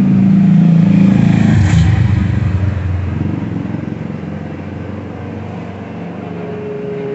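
A motor vehicle's engine passing by, loudest in the first two seconds and then fading to a weaker steady hum.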